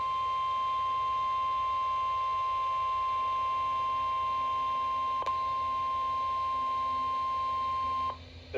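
NOAA Weather Radio warning alarm tone: a single steady high-pitched beep held for about eight seconds, then cut off abruptly. The tone signals that an urgent watch or warning message follows.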